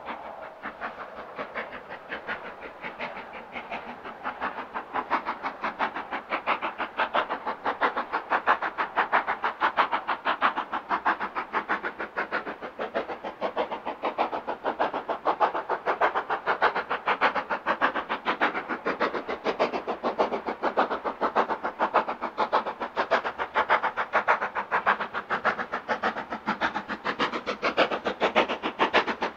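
LMS Black 5 two-cylinder 4-6-0 steam locomotive working a train, its exhaust beating in a rapid, even rhythm. The beats grow louder over the first several seconds, then hold steady.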